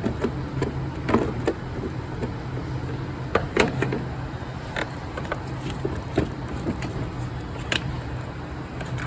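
Scattered light clicks and knocks, a few louder ones about one and three and a half seconds in, over a steady low hum.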